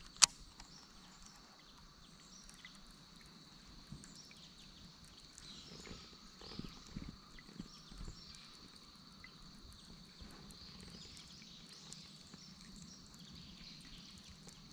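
Raid Japan Dodge crawler bait being retrieved across the pond surface, its wings making a faint rhythmic plopping. A sharp click comes just after the start, and a steady high-pitched drone runs underneath.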